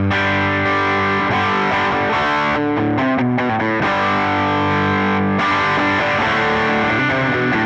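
Electric guitar played through a Line 6 Helix-family amp modeller with an overdriven tone, ringing out sustained chords that change every second or so.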